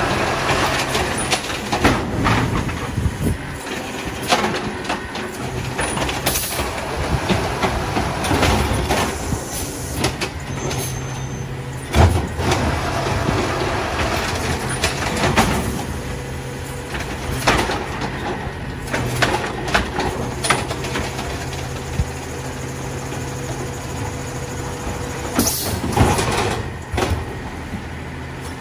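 Diesel Peterbilt 520 garbage truck with an Amrep automated side loader: the engine runs steadily under the hydraulic arm as it lifts a wheeled trash cart, tips it into the hopper and lowers it back to the curb. Several sharp bangs of the cart knocking against the hopper sound through the running, the loudest about twelve seconds in.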